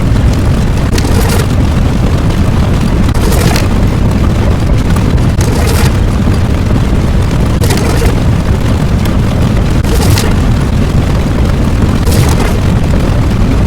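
Loud layered explosion sound effects: a constant deep rumble with a sharper blast about every two seconds.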